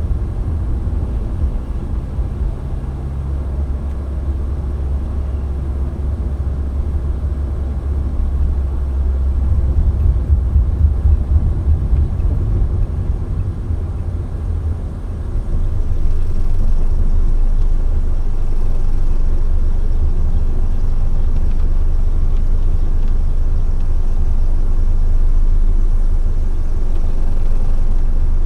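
Steady low rumble of a car driving, with engine and road noise heard from inside the moving car. It grows louder about halfway through and then holds steady.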